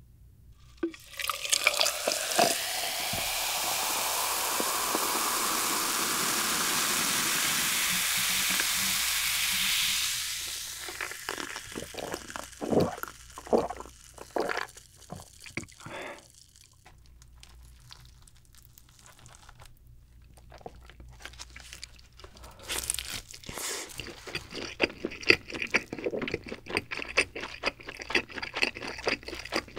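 Cola poured from a bottle into a glass, fizzing steadily with the pitch rising as the glass fills, then the fizz settling and a few gulps as it is drunk. Near the end a slice of cheese pizza is pulled from the pie, with soft crackling and clicking.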